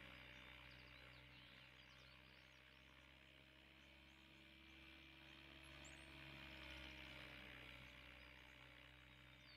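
Near silence: a faint steady hum and hiss.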